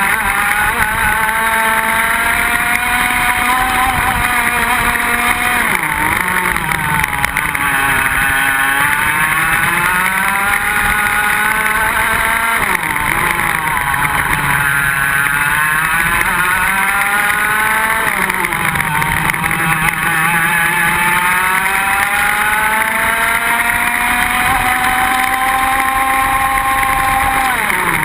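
Iame X30 125cc two-stroke kart engine at race pace, recorded on board. Its pitch climbs steadily along each straight and drops sharply under braking four times, about every six seconds.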